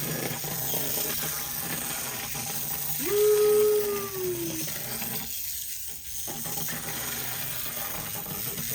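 Clockwork mechanism of a TPS tin wind-up clown toy running, a steady whirring of gears and ratchet with many small clicks. About three seconds in comes a short tone that falls slightly in pitch and is the loudest sound. The higher whirr drops out briefly about five seconds in.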